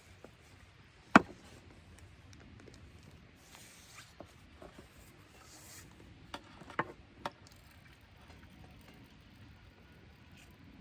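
A few sharp knocks and taps of hard objects being handled: one loud knock about a second in, then three quicker ones close together around six to seven seconds in.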